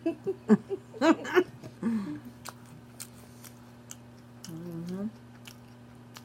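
A person chewing food, with wet mouth clicks. There are short wordless vocal sounds in the first two seconds and a brief hummed "mm" about five seconds in.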